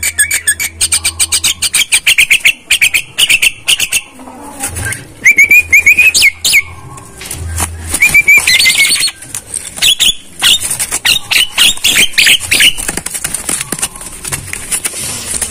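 A caged myna chattering and calling: fast runs of clicks, strings of short chirps, and whistles that slide upward. It goes quieter near the end.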